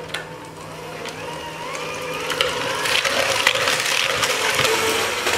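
Electric hand mixer running, its beaters whisking egg yolks and sugar in a mixing bowl. The motor's whine rises in pitch during the first couple of seconds, and the whirring of the beaters in the batter grows steadily louder.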